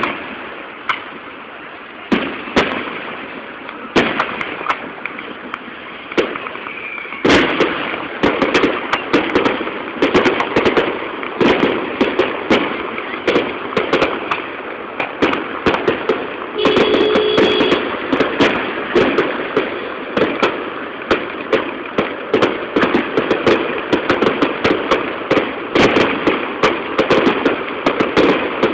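Fireworks display: aerial shells bursting with sharp bangs, a few spaced a couple of seconds apart at first. From about seven seconds in they become a rapid, continuous barrage of bangs and crackling.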